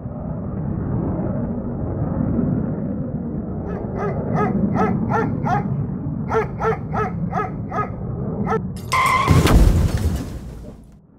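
A quick series of about a dozen short, sharp animal calls over a low rumble, followed by a loud rushing burst about nine seconds in that then fades away.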